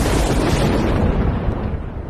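A deep, explosion-like boom and rumble that sets in just before and fades gradually over a couple of seconds, most likely an intro sound effect.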